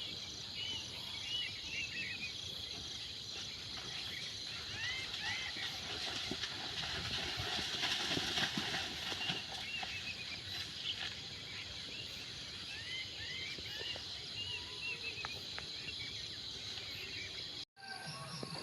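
Outdoor night-time-style ambience: a steady high insect trill with many short, repeated chirping calls over it. A louder rustling swell comes about halfway through, and the sound cuts out for an instant near the end.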